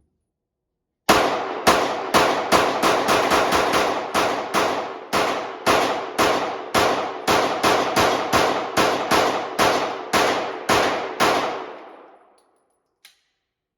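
Glock 19 9 mm pistol in a Micro Conversion Kit (MCK) chassis fired in a long, steady string of about two dozen shots, two to three a second, each with a ringing echo. A faint click comes about two seconds after the last shot.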